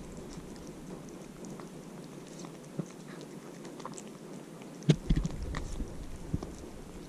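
Young ginger-and-white cat eating from a plate close to the microphone: chewing, with many small clicks of teeth and mouth. A sharper knock about five seconds in.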